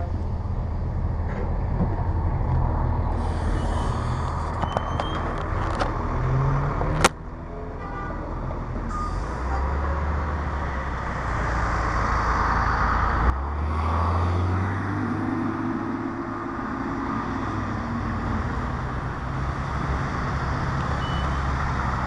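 Cummins ISC inline-six diesel of a 2002 Blue Bird CS transit bus pulling away and accelerating, its engine note rising in steps, with a sharp click about seven seconds in. Tyres hiss on wet pavement.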